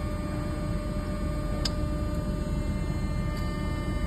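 Steady machinery hum with a few constant tones, with a single faint tick about one and a half seconds in.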